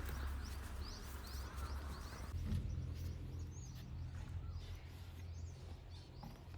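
Heavy diesel engine running at a low, steady hum. A hiss over it cuts off about two seconds in, while small birds chirp repeatedly throughout.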